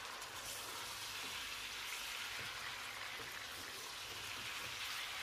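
Raw mutton pieces sizzling in hot oil in a stainless steel pot over a high flame, a steady hiss: the meat is searing until its colour changes.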